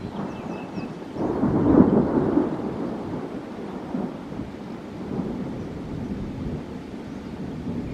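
Thunder rumbling in a rainstorm: it swells about a second in, is loudest around two seconds, then dies back to a lower, steady rumble, with rain falling.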